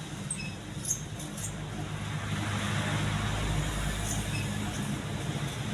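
Majestic deluxe ceiling fan running, a steady low motor hum, with a swell of rushing noise in the middle and a sharp click about a second in.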